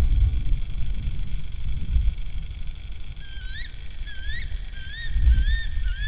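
Tawny owl calling: a series of four or five short, rising notes, about one a second to two a second, starting about three seconds in. Under it runs a low rumble that swells near the start and again about five seconds in.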